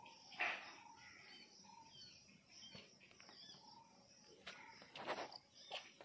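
Faint outdoor birdsong: small birds chirping, with a few short, louder bird calls about half a second in and again near the end.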